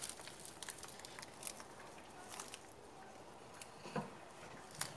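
Faint rustling and small crinkly clicks as hands handle a hoya plant's leaves and a small plastic pouch of soil, with two slightly louder soft knocks near the end.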